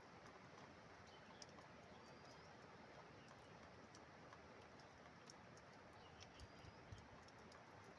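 Near silence: a faint steady hiss with scattered light ticks and a few faint bird chirps.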